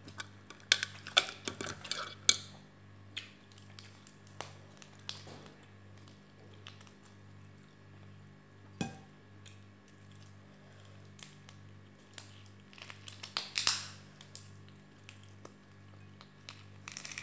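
Large cooked prawn's shell cracked and pulled apart by hand, with crisp crackles and light clicks against a plate, a busy cluster in the first couple of seconds and another about 13 seconds in. A steady low hum runs underneath.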